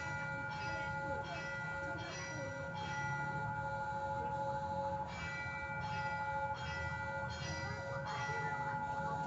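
Railway level-crossing warning bell ringing in repeated chimes, about three strikes every two seconds, with a short break in the strikes just before the middle. A low rumble runs underneath.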